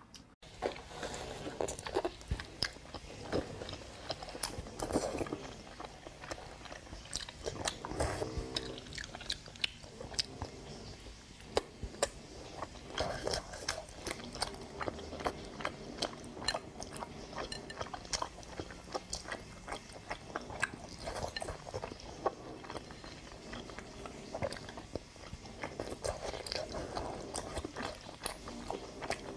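Close-miked eating of thick, chewy noodles in chili sauce: wet chewing and slurping with many small sharp clicks.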